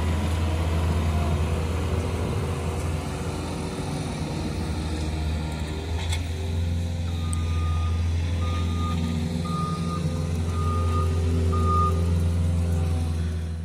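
Heavy earthmoving machine's diesel engine running steadily while its back-up alarm sounds five beeps, about one a second, in the second half.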